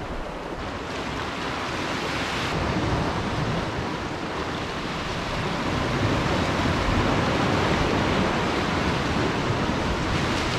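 Sea swell surging and breaking against shoreline rocks, a steady wash of surf that grows gradually louder.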